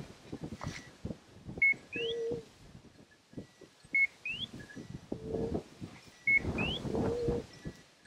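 Electronic beeper on a bird dog's collar sounding three times at even intervals of about two and a half seconds, each a short high beep with a quick rising chirp, along with short lower tones. Behind it is the swish of walking through dry grass.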